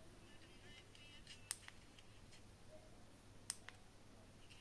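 Two sharp clicks about two seconds apart over near silence: the physical (non-touch) play/pause buttons on a pair of Fineblue A55 Pro wireless earbuds being pressed.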